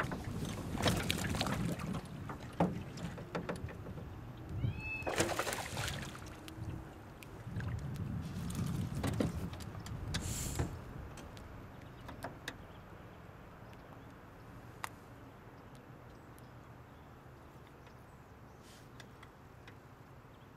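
Splashing and knocking as a hooked largemouth bass is fought at the side of a small aluminium boat and lifted out by hand about ten seconds in, then quieter water with a few light clicks.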